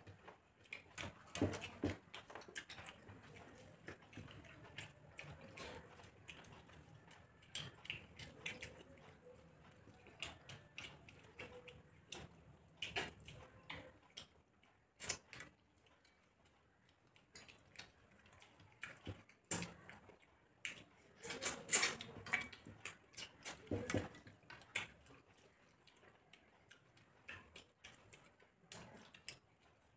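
Two people eating rice and curry with their hands: chewing and mouth noises, fingers mixing rice on steel plates, with scattered sharp clicks that come thickest and loudest a little past two-thirds of the way through.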